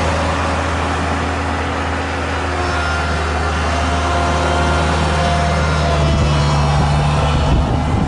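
Diesel engine of a tandem drum asphalt roller running steadily at close range, a loud continuous drone with a constant low hum.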